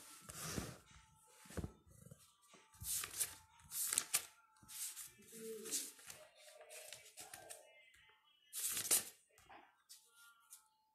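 A handful of brief rustles and handling noises close to the microphone, like paper or pages being moved, with short quiet gaps between them.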